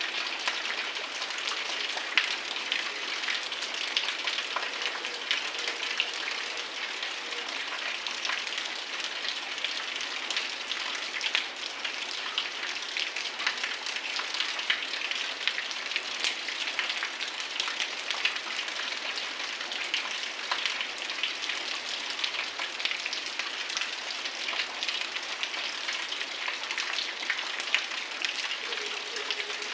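Heavy rain falling steadily, a dense hiss of countless drops ticking.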